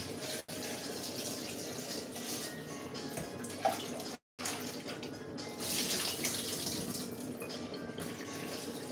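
Water running steadily from a kitchen tap into the sink as tomatoes are rinsed under it. The sound cuts out completely for a moment a little past four seconds in.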